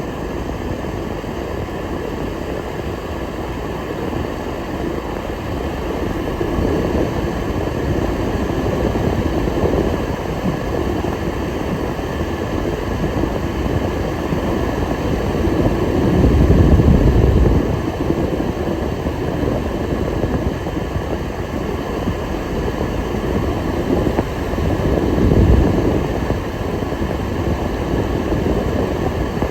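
Hailstorm: a dense, steady roar of hail and rain pounding down, swelling louder twice, once past the middle and again near the end.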